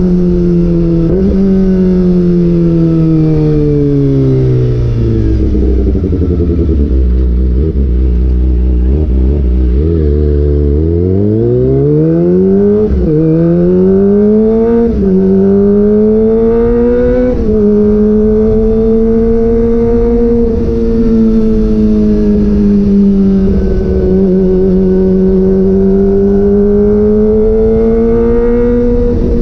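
Kawasaki ZX-25R's 250 cc inline-four running through an aftermarket DX Generation GPR exhaust with the dB killer removed. The revs wind down as the bike slows and pull low for a few seconds. Then it accelerates with three quick quickshifter upshifts in a row, each a sudden drop in pitch, and settles into a steady cruise with small rises and falls in revs.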